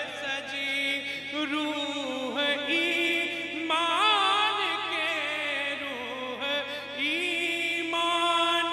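A man's solo voice singing a naat, an Islamic devotional song, into a microphone over a PA system. He sings long, drawn-out phrases with a wavering vibrato on the held notes.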